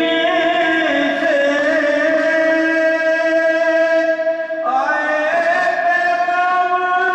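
A man chanting a devotional poem in long, held notes that slide from one pitch to the next, stepping up to a higher note about four and a half seconds in.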